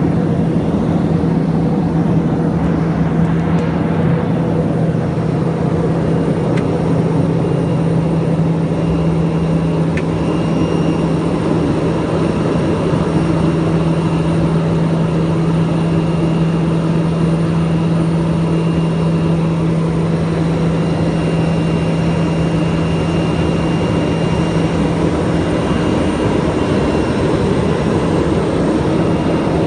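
TBM 850's PT6A-66D turboprop engine and propeller droning steadily, heard from inside the cockpit. A strong low hum in the drone drops away about four seconds before the end.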